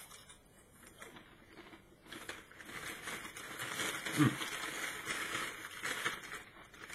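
Prawn crackers being crunched and chewed close to the microphone: an uneven crackling of small crisp snaps, heaviest in the second half, with a brief low hum from the eater about two-thirds of the way through.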